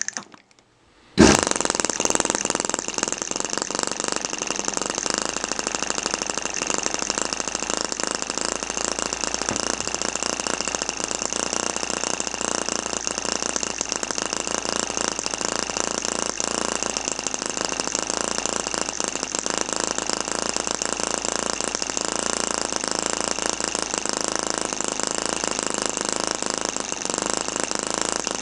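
Miniature side-shaft hit-and-miss gasoline engine (3/8-inch bore, half-inch stroke, mostly aluminum, running on 50:1 gas-oil mix with electronic ignition) running with a fast, even, rattling clatter of firing strokes. The sound comes in about a second in, then keeps a steady pace.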